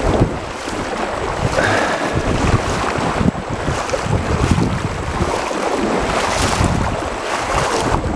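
Wind buffeting the microphone in irregular gusts, over the flow of a shallow river.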